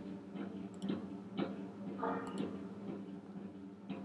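A few faint, sharp clicks of a computer mouse, spaced irregularly, over a steady low hum.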